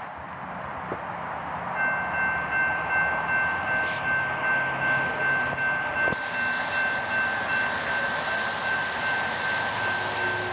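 A fast freight train led by two GE diesel-electric locomotives approaching and running past. The steady noise of the engines and wheels grows louder about two seconds in. A steady high whine holds from then on.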